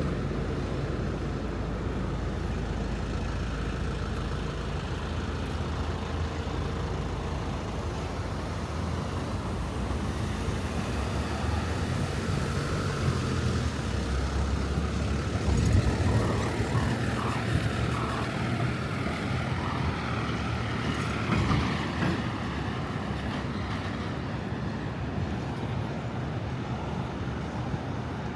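City street traffic: a steady hum of passing cars and trucks, with a louder vehicle going by about halfway through.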